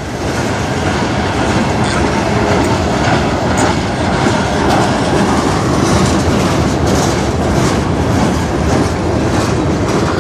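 A manifest freight train's cars rolling past close by: a steady rumble and rattle of steel wheels on rail, with the clickety-clack of wheels crossing rail joints.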